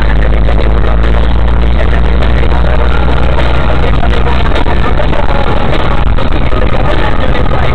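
Music mixed with the steady low rumble of a moving car's engine and road noise, very loud and distorted.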